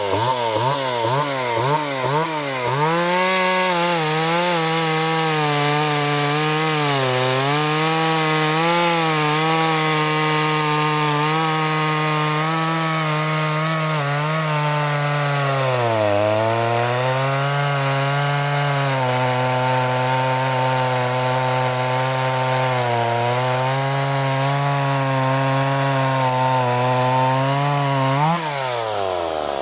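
Stihl 038 Magnum chainsaw, with a freshly fitted Chinese 66.8 cc 038 Super-type engine still being run in and a stock muffler, revving up and cutting through a thick hardwood log at full throttle. The engine note sags and recovers as the chain bites, most clearly about seven and sixteen seconds in. Near the end it rises sharply as the chain breaks through, then drops away.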